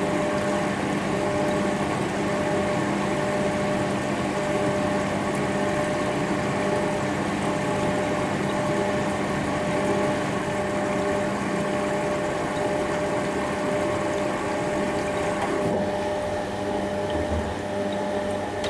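Bauknecht WA 9350 washing machine's drain pump running steadily, pumping water out, with a steady hum and rushing water. About 16 s in the sound changes and thins, and it tails off at the very end.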